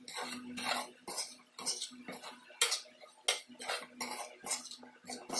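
Metal spoon stirring and scraping a dry, crumbly spice-and-gram-flour mixture around a metal pan, in repeated strokes about twice a second.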